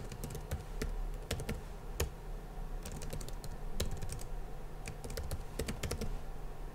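Typing on a computer keyboard: a run of irregular key clicks as a single word is typed.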